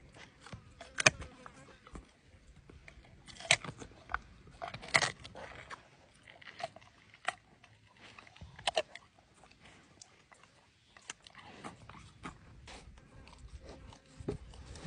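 Jaguar biting and chewing raw chicken, with irregular crunching and a few loud sharp cracks.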